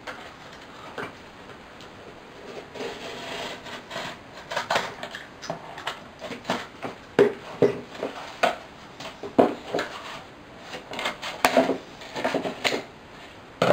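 Scissors cutting through a cardboard box: a run of irregular snips and crunches, sparse at first and coming more often from about four seconds in.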